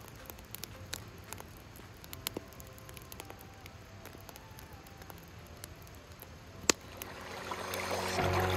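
Faint, scattered small clicks and crackles, with one sharp click about two-thirds of the way in. Near the end a rushing noise swells and music comes in.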